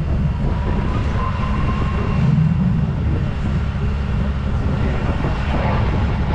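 P-51 Mustang's Merlin V-12 engine droning steadily as the fighter flies in on a pass.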